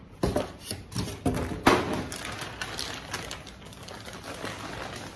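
Plastic shopping bags rustling and crinkling as items are rummaged out of them. There are several sharp crackles and knocks in the first two seconds, the loudest a little under two seconds in, then steadier rustling.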